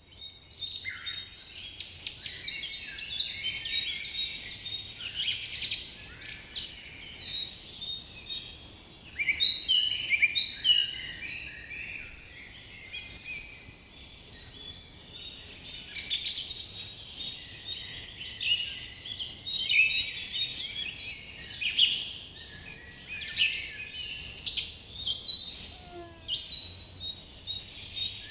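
Many small birds chirping and singing at once in a dense, continuous chorus of quick overlapping high chirps and trills.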